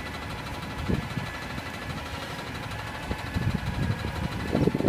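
Heil front-loading garbage truck's diesel engine idling steadily, with a low thud about a second in and a series of low knocks and clunks over the last two seconds.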